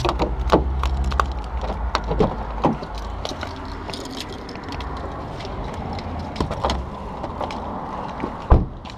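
Car door being opened and gear handled inside: a string of clicks, knocks and rattles, with keys jangling, over a low rumble. One loud thump comes near the end.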